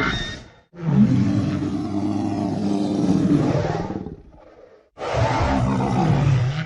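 Two deep, growling roars played as sound effects: the first runs about three seconds and trails off, the second starts about five seconds in.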